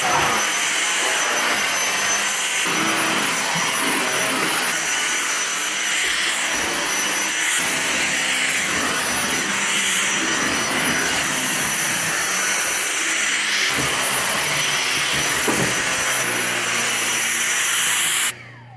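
Dyson DC59 cordless stick vacuum running steadily with a high motor whine as it is pushed over the floor; it is switched off just before the end.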